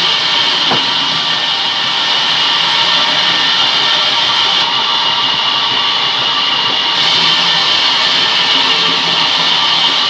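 Sawmill band saw running and sawing rain tree wood into thin slices: a steady rushing noise with a constant high whine.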